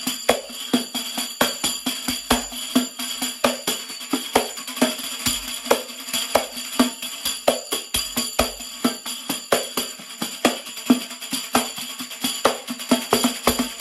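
A tef, a frame drum fitted with metal jingles, struck by hand in a fast, steady rhythm, the jingles ringing with every stroke.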